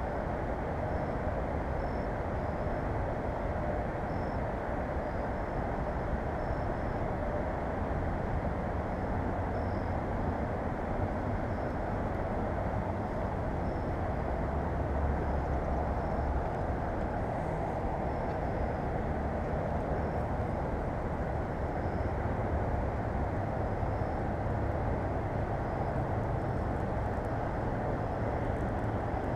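Steady low rumble of distant road traffic, with faint short high chirps dotted through it.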